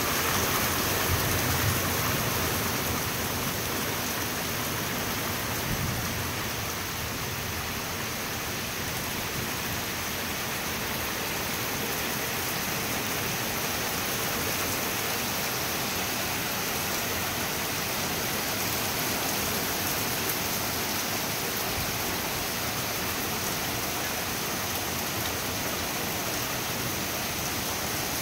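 Heavy rain coming down hard, a steady even hiss of downpour.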